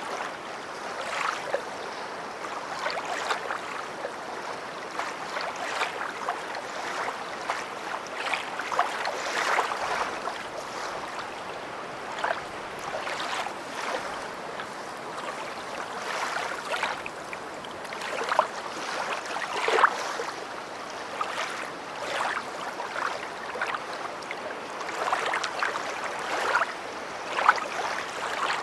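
Small lake waves lapping and splashing against a shore, a steady wash broken by frequent short splashes, a few sharper ones standing out.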